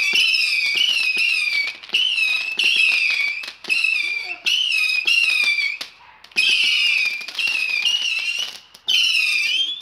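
Whistling fireworks: a string of high, wavering whistles, each about a second long, following one after another, with sharp crackling pops beneath.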